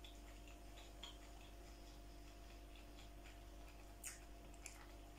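Near silence: a faint steady hum with a few soft clicks from eating, fork and mouth, the clearest about four seconds in.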